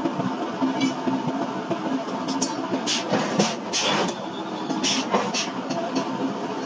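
Sledgehammer blows on a steel punch driven into a red-hot iron block: a run of about ten sharp metal strikes, a few a second, between about two and five and a half seconds in, over a steady background machinery hum.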